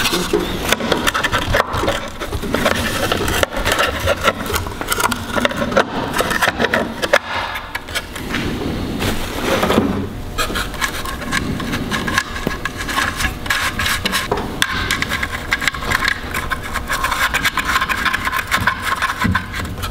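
Plastic rear cover of a Bosch alternator being fitted over the voltage regulator and its fasteners worked on by hand: continuous close-up scraping, rubbing and clicking of plastic against metal.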